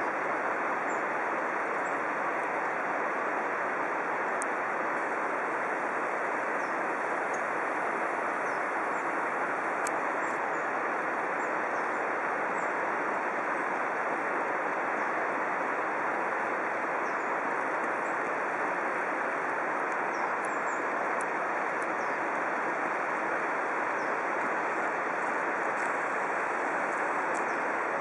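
Steady rushing of waterfalls, an even roar of falling water without rhythm, with faint high chirps here and there.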